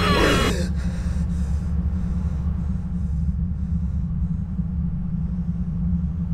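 A low, steady rumbling drone, with a bright crash tail fading out in the first half-second.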